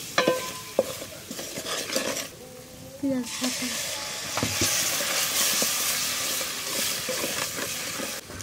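Ground spices (coriander, cumin, turmeric, chilli powder) frying in oil in a cooking pot while being stirred, with a utensil knocking against the pan in the first couple of seconds. After a short lull the sizzle comes up loud about three seconds in and keeps going.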